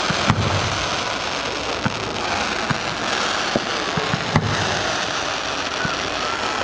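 Fireworks going off: a steady crackling hiss with scattered sharp bangs, the loudest about four seconds in.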